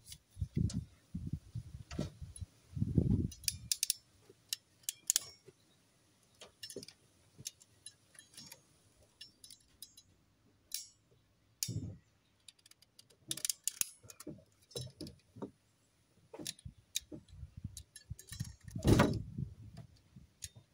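Wire cutters snipping and clicking as headlight wires are cut down and their insulation stripped back to bare wire. Scattered sharp clicks come with pauses between them, along with a few duller handling knocks, the loudest near the end.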